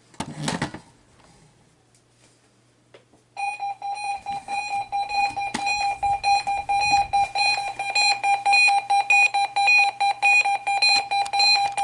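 Weather radio receiver's alert beeper sounding for a Required Weekly Test: a rapidly pulsing electronic beep at one pitch, starting a little over three seconds in. A short noise burst comes about half a second in.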